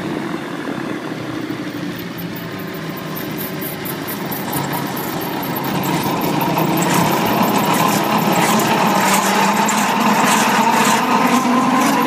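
Ultralight gyrocopter's engine and propeller running steadily, then building up in pitch and loudness from about halfway through.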